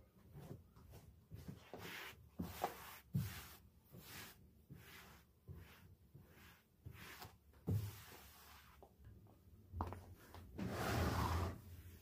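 Household objects being handled: a string of light taps, knocks and clatters as things are picked up and set down, with a longer rubbing or scraping noise about ten and a half seconds in.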